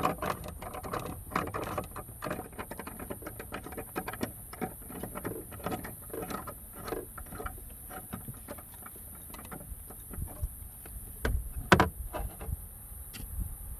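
Socket ratchet clicking as bolts on the car are worked loose, a dense run of rapid clicks thinning out in the second half, with a single sharp knock near the end.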